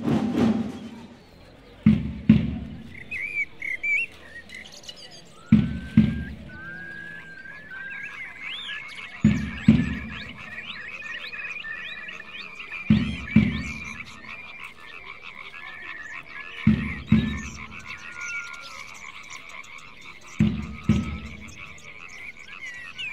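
Slow beat on a samba band's bass drum: a double stroke about every three and a half seconds. Under it runs a dense rattling chatter with bird-like chirps and whistling glides.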